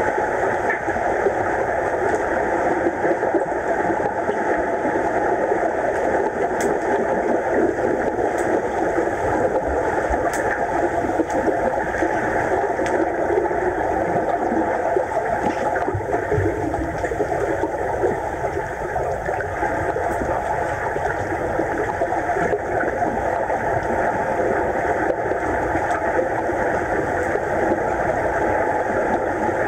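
Steady, muffled underwater noise of a swimming pool, picked up by a submerged camera, with a few faint ticks.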